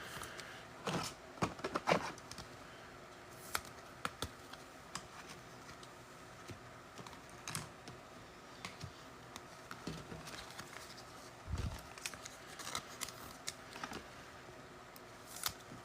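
Scattered soft clicks, taps and rustles of trading cards and card packs being handled and sorted on a table, with a brief low thump about 11.5 seconds in.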